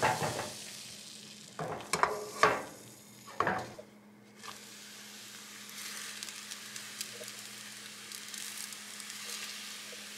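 Crepe batter sizzling in a hot frying pan, with a few sharp scrapes and knocks of a spatula against the pan in the first few seconds, then a steady soft sizzle.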